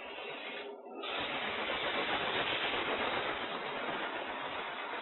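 Sandpaper on a foam pad held against a thin wooden hat spinning on a lathe: a steady sanding hiss that breaks off briefly twice in the first second and then carries on evenly.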